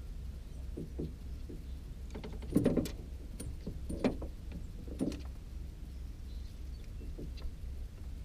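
Knocks and light clatter of fishing gear being handled in a small boat, loudest in a short cluster about two and a half seconds in and with single knocks a little later, over a steady low hum.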